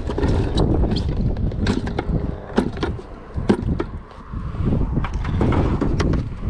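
Water and live bait poured from a five-gallon plastic bucket into an orange plastic bait bucket, with repeated sharp knocks and clatter from the plastic buckets being handled over a steady low rumble.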